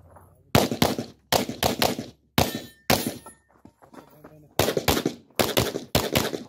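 Glock 17 9mm pistol fired rapidly in quick pairs and short strings, about a dozen sharp shots in all, with a pause of about a second and a half in the middle.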